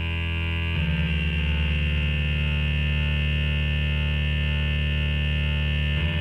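Background music: sustained synthesizer chords over a deep drone, shifting to a new chord about a second in and again near the end.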